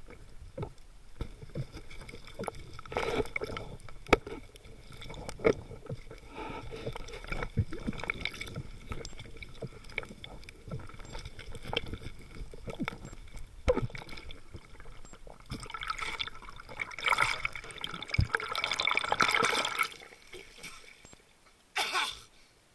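Underwater bubbling and gurgling from a scuba diver, recorded below the surface, with many scattered sharp clicks and knocks and a denser rush of bubbling noise about three-quarters of the way through. A short sharp burst of noise comes near the end, once the camera is at the surface.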